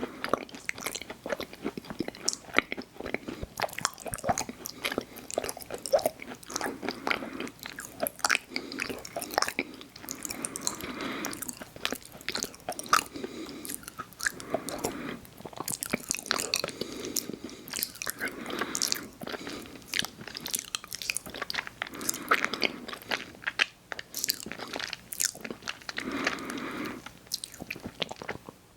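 Close-miked chewing of soft chewy chocolate cookies, with irregular sharp clicks of bites and wet mouth sounds throughout, stopping abruptly at the end.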